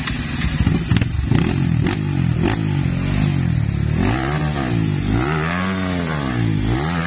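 Trail motorcycle engine running with sharp knocks and clatter over the first couple of seconds, then revved up and down twice in long swells, a third rev starting at the end.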